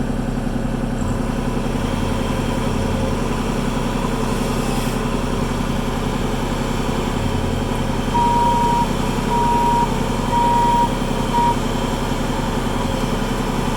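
Heavy machine's engine running steadily, and from about eight seconds in a backup alarm beeps at an even pace, about one beep a second.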